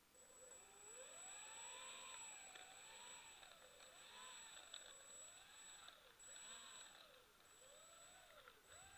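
Twin propeller motors of a radio-controlled B-25 model bomber taxiing on grass. Their pitch rises and falls about once a second as the throttle is worked. A thin high whine runs alongside and breaks off briefly a few times near the end.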